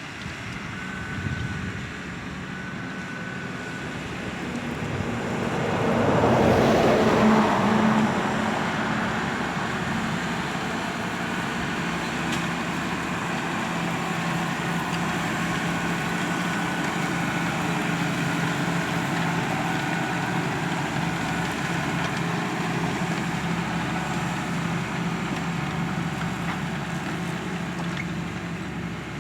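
Valtra tractor's diesel engine working under load as it pulls a four-furrow plough, a steady drone that swells to its loudest about six to eight seconds in, then runs on evenly.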